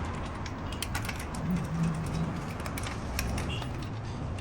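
Scattered light metallic clicks and rattles of hand tools and parts being handled while a car wheel is being refitted, with a brief low hum about a second and a half in.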